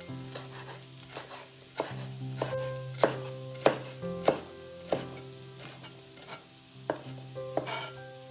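Kitchen knife chopping on a cutting board: separate chops at an unhurried, uneven pace, one or two a second, over soft background music.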